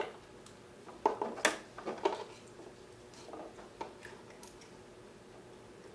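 Light clicks and rattles of multimeter test leads and probes being handled and connected, a quick cluster of them in the first two seconds, then only a faint steady tone.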